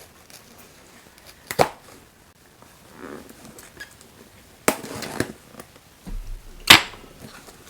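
Packaging being handled and opened by hand: a few separate sharp knocks and scrapes, a cluster in the middle and the loudest near the end, with a short low thump just before it.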